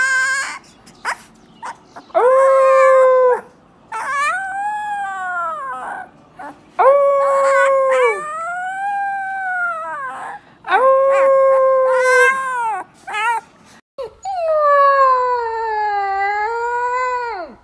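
Young husky puppies howling in high, thin voices: a string of short howls, some held on a level note and others rising and falling. After a brief pause comes one longer howl that slides down, lifts and drops away at the end.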